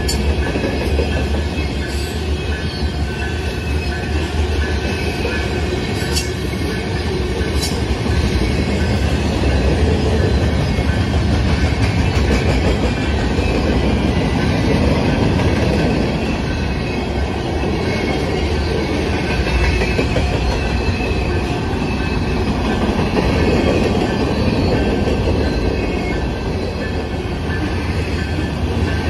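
Freight train of covered hopper, gondola and tank cars rolling past at close range: a loud, steady rumble of steel wheels on rail, with a thin steady squeal and a few sharp clicks.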